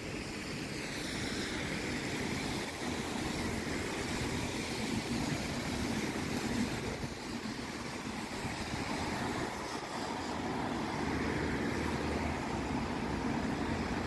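Road traffic on a wet street: buses and cars passing with a steady hiss of tyres on the wet tarmac.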